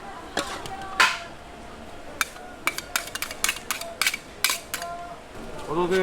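Metal kitchen utensils clattering against pans and containers: a dozen or so sharp, irregular clicks and knocks, the loudest about a second in.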